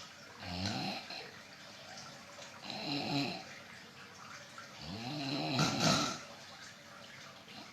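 Snoring: three snores about two seconds apart, each a rough pitched rasp, the third the longest and loudest.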